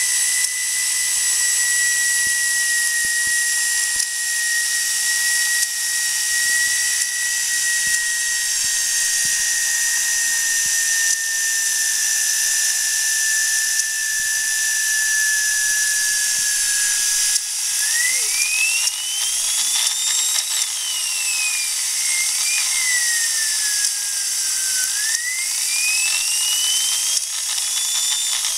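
Small model steam turbine (Karsten Gintschel "Tornado") spinning at high speed: a high, drill-like whine over a steady hiss. The whine sinks slowly in pitch, then a little over halfway through it rises and falls twice as the turbine speeds up and slows down.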